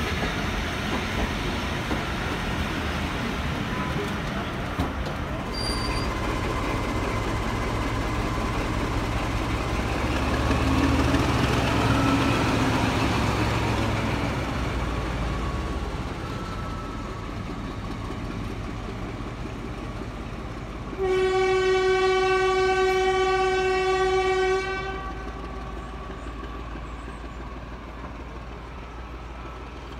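Diesel-hauled train running past, with a low engine rumble and rolling noise that swells and then fades. About two-thirds of the way through, a diesel locomotive horn sounds one long, steady note for about three and a half seconds; it is the loudest sound.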